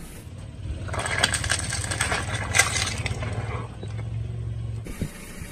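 Car tyre rolling over and crushing filled rubber chicken toys: a crackling crunch with sharp clicks from about a second in, for a few seconds, over the low steady hum of the car's engine, which stops near the end.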